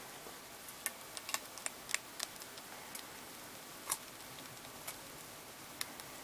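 Golden hamster chewing on a flat-horn hissing cockroach: sharp, irregular crunching clicks, a quick cluster from about one to two and a half seconds in, then single clicks spread apart.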